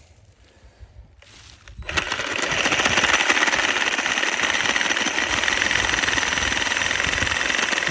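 A power saw starts about two seconds in and runs steadily with a fast, even rattle and a motor whine, cutting through the deer's pelvic bone.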